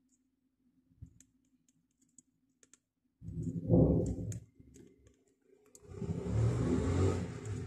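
Faint light clicks as a small capacitor is desoldered from a TV's T-con circuit board with a soldering iron. A low rumble comes in about three seconds in, and a steadier engine-like rumble builds over the last two seconds.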